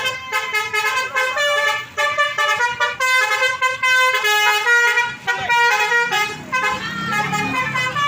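Bus 'telolet' musical horn playing a quick melody of short stepped notes. A lower rumble joins in the last couple of seconds.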